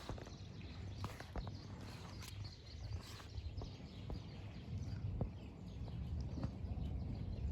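Outdoor background noise: a steady low rumble with scattered faint clicks and ticks.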